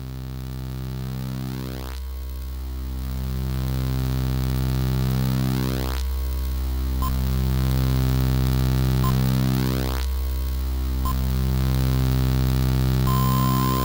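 ZX Spectrum 48K one-bit beeper music: a buzzy low drone, rich in overtones, with a sweeping phasing effect that repeats about every four seconds, swelling in over the first few seconds. Short high blips join from about halfway through, and a held high tone sounds near the end.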